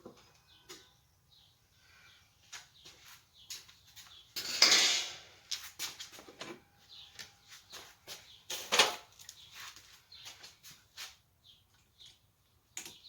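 Metal clinks and knocks of hand tools and parts being handled during a scooter teardown, with two louder rattling bursts, one about four seconds in and one about nine seconds in.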